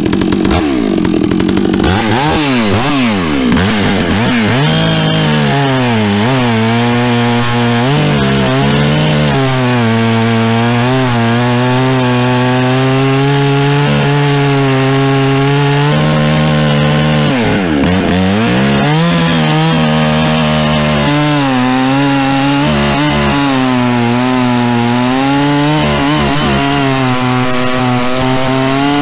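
Holzfforma G660 two-stroke chainsaw with an aftermarket Bulletproof Performance muffler, running loud at full throttle while its chain cuts through a large log. The engine settles to a steady lower pitch under load, sagging briefly a few times as the bar bites deeper, with the chain's rasp through the wood underneath.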